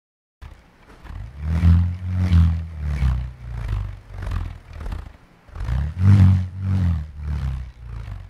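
Large Māori purerehua (bullroarer), a rimu-wood blade on nylon cord whirled from a long wooden handle, giving a low, buzzing drone. It starts about half a second in and swells and fades with each swing, roughly every two-thirds of a second, with a brief dip just past the middle.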